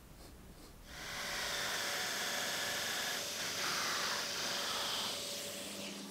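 A jigsaw with a dust extractor hose attached cuts a large circle in plywood, starting about a second in as a steady hiss and whine. Near the end this gives way to the lower, steady hum of a drum sander spinning in a drill press.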